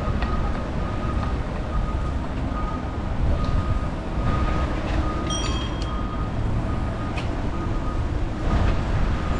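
Street noise heard from a moving bicycle in city traffic: steady low rumble and wind on the microphone, with a faint high tone repeating about twice a second. A short ringing tone sounds about five seconds in.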